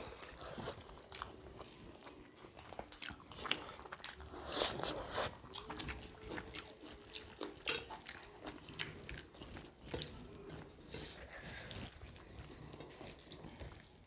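Two people eating rice and curry by hand: irregular wet chewing and mouth smacks, with fingers squishing and mixing rice on steel plates.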